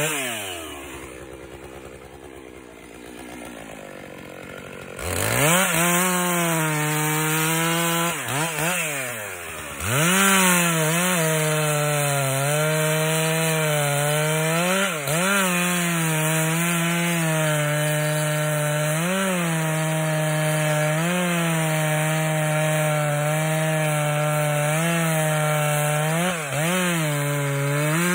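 Two-stroke chainsaw engine dropping back to a low idle, then revved up to full throttle about five seconds in. It is held at high revs cutting into wood, its pitch dipping briefly every second or two as it bogs under load.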